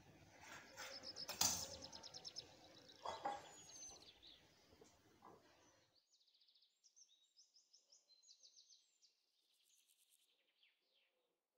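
Birds chirping faintly in short repeated trills, over a light background hiss that drops away about halfway through. A couple of sharp knocks come in the first half.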